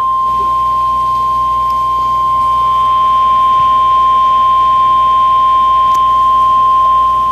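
NOAA Weather Radio 1050 Hz warning alarm tone: one steady, single-pitched beep held without a break, cutting in abruptly. It signals that a warning message, here a special marine warning, is about to be broadcast.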